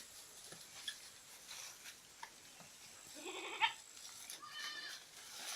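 Goats bleating: two calls, the first about three seconds in and the second about a second later.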